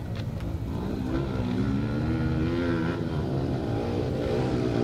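Motocross bike engines revving on the track, the pitch climbing for about two seconds, dropping near the three-second mark, then climbing again near the end.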